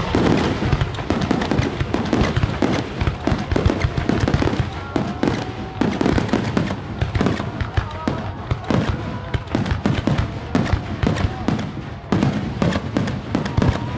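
A rapid, unbroken barrage of aerial firework shells bursting, several sharp reports a second, during a finale of gold brocade-crown (nishiki kamuro) shells.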